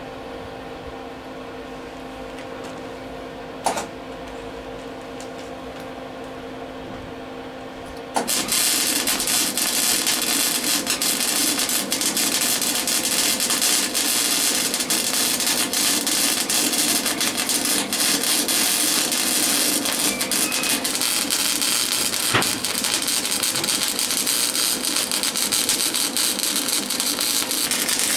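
A steady hum, then about eight seconds in welding starts on the exhaust muffler's broken manifold mount: a loud, continuous crackle with dense rapid pops, held without a break.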